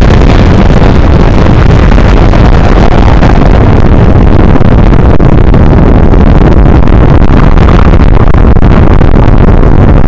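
Atomic bomb explosion sound effect: a loud, steady, rumbling roar with most of its weight in the lows, held at full volume and heavily overdriven.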